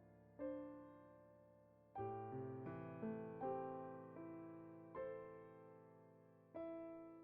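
Soft solo piano music: slow, gentle notes and chords, each struck and left to fade.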